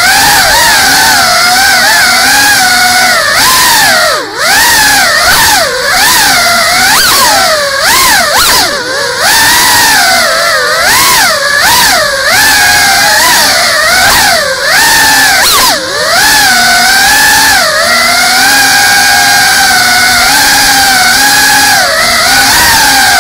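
Small FPV drone's brushless motors and propellers whining, heard close up from the camera on board. The pitch rises and falls constantly with the throttle, with a few brief drops.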